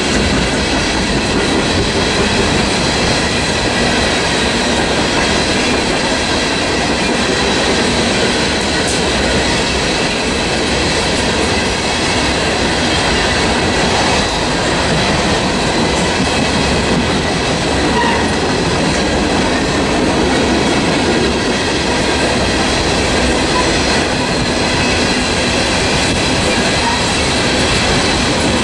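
A freight train of open-top hopper cars rolls past close by. Steel wheels on rail make a steady, loud din that does not let up, with faint thin tones ringing above it.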